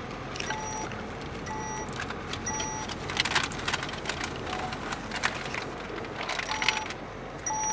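Peugeot van driving slowly, heard inside the cabin as steady engine and road noise. An electronic warning chime beeps about once a second, three times early on and twice more near the end. A couple of short rattles come in between.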